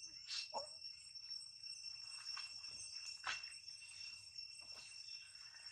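Steady high-pitched insect chorus with two unbroken tones, with a few short sharp sounds about half a second in and again past the three-second mark.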